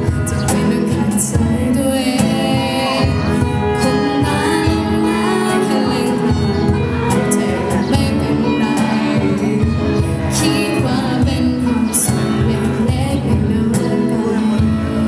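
A small live acoustic band plays a pop song: a female voice sings into a microphone over strummed acoustic guitar, electric guitar and cajon hits, with an alto saxophone.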